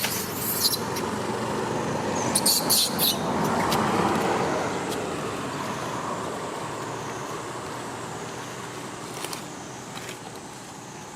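Road traffic: a passing vehicle's noise swells to its loudest about four seconds in, then slowly fades, with a few short, sharp high-pitched sounds near the start and again around three seconds in.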